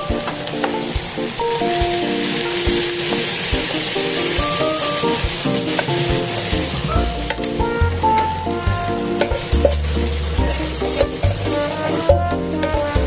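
Chopped onion and carrot sizzling in a frying pan as they are stirred with a wooden spatula. Background music with a melody plays over it, and bass notes join about halfway through.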